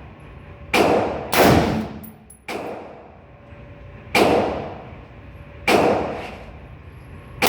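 Gunshots at a shooting range: six shots at uneven intervals, the third fainter than the others, each one ringing and fading for most of a second.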